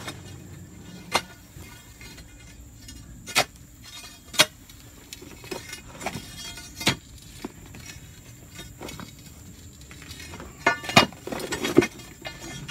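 A steel pry bar clinks and scrapes against chunks of a boulder split by expansive demolition grout as the pieces are levered apart. Single sharp clinks come a second or more apart, then a quick run of clinks and grinding near the end.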